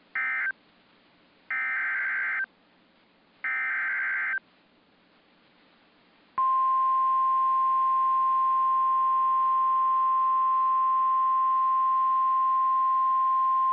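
NOAA Weather Radio Emergency Alert System signal. A short burst and then two one-second buzzy bursts of SAME digital data tones play first. About six seconds in, the steady 1050 Hz Warning Alarm Tone starts and holds loud and unbroken, announcing a new warning.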